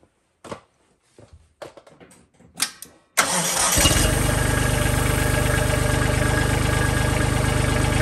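A few scattered clicks and knocks, then about three seconds in a Kubota tractor's diesel engine cranks for under a second, catches and settles into a steady idle.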